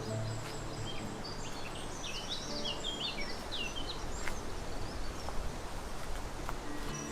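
A small songbird sings a quick run of short, high chirping notes about one to four seconds in, over a steady outdoor hiss.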